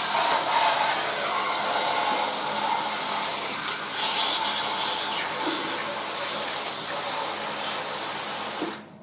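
Shower running, its spray of water hissing steadily as it wets a plastic PC case window; the water cuts off suddenly near the end.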